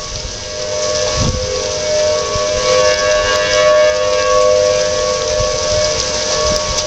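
Several outdoor warning sirens, Federal Signal Thunderbolts and American Signal T-128s, sounding a steady alert for a severe thunderstorm warning. Their two-tone chord swells and fades as the rotating horns sweep past, over the hiss of steady rain.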